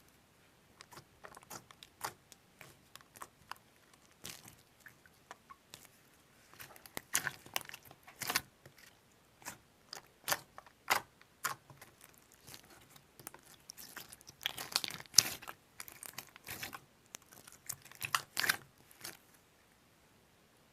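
Thick rainbow rice-cake slime being pressed and kneaded by hand, giving irregular sticky clicks and crackling pops that come in clusters with short quiet gaps between them.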